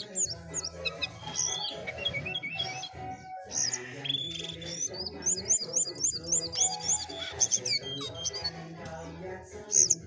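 Caged jongkangan songbird singing in full voice: a busy string of chirps and whistled slides, with a quick run of about four repeated notes a second in the middle and a loud note near the end.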